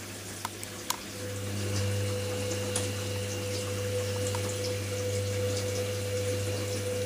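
Hoover Nextra front-loading washing machine early in a wash: water runs in the background, and about a second in, after two sharp clicks, the drum motor starts with a steady hum and a whine, tumbling the load.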